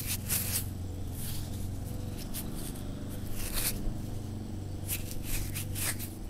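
Fingers rubbing and scraping soil off a freshly dug clip-on earring close to the microphone: a series of short, irregular scratchy rubs, over a low steady hum.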